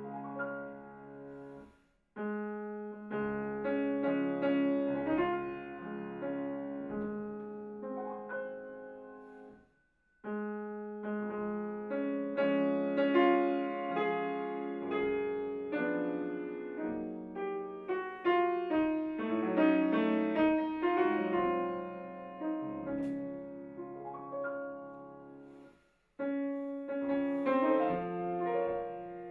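Solo grand piano playing classical music: phrases that swell and fade, broken by short silences about two, ten and twenty-six seconds in.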